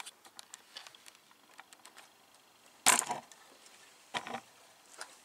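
Light clicks and ticks of a plastic scale model being handled, with a louder knock about three seconds in and a second one just over a second later.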